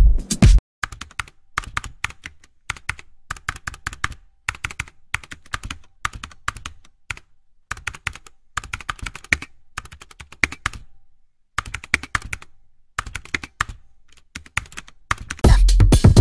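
Irregular run of quick clicks and taps with short pauses, like typing, then loud electronic dance music starting near the end.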